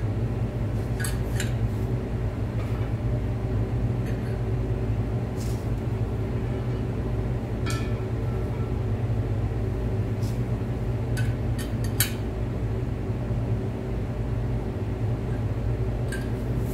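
Steady low machine hum in the garage, with a few sharp metallic clinks of wrenches working the nut of a threaded-rod harmonic damper installer on an LS engine.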